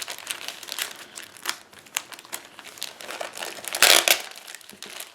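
Packaging crinkling and rustling in irregular bursts as a scrapbooking kit's add-on is handled and unwrapped, with one louder crinkle about four seconds in.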